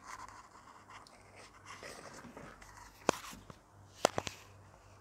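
Plastic wedges of a 72-piece Rubik's Twist snake puzzle being turned by hand, with soft handling rustle. A sharp click comes about three seconds in, then a quick run of three clicks a second later as segments snap into position.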